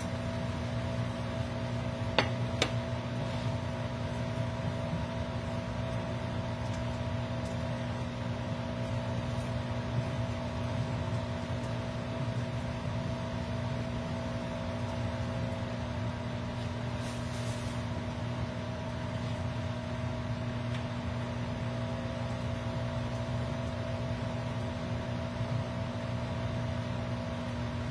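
Microwave oven running with a steady, even hum while reheating vegetables. A couple of light clicks come about two seconds in.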